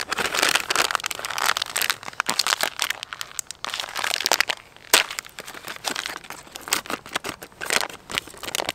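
A snack packet crinkling and crackling in the hands as it is handled and opened, in a quick run of sharp, irregular crackles with a brief pause about halfway through.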